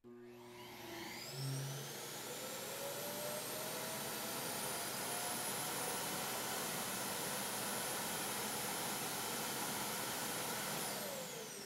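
iRobot Clean Base evacuation vacuum of the Roomba i7+ spinning up with a rising whine, then running steadily with loud rushing air as it sucks the dirt out of the robot's bin into the bag. About eleven seconds in, the motor spins down with a falling whine.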